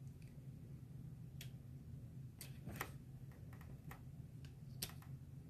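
About half a dozen light, irregular ticks as a weeding hook taps and presses on glitter vinyl and transfer tape on a table, over a low steady hum.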